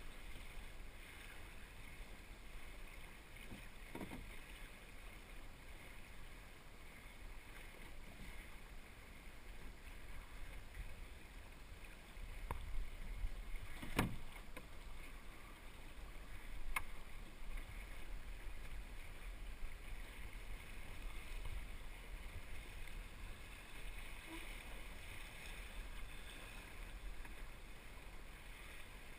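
El Toro sailing dinghy moving through the water: water washing and splashing along the hull, with a low wind rumble. A few sharp knocks from the boat, the loudest about fourteen seconds in.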